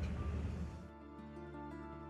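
Soft instrumental background music with held notes. A loud hiss of noise over it dies away about a second in.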